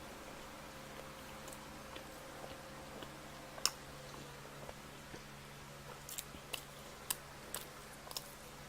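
A person chewing pizza close to the microphone: faint, scattered mouth clicks and smacks, a sharper one about three and a half seconds in and a run of them near the end, over a faint steady hum.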